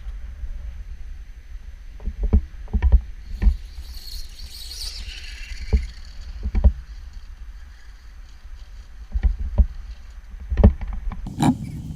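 New Bright Brutus toy RC monster truck with a 7200Kv brushless motor running off-road: a series of thumps as it bounces on its bare tyres with no suspension and tumbles. A high motor whine falls in pitch about four to five seconds in, over a steady low rumble.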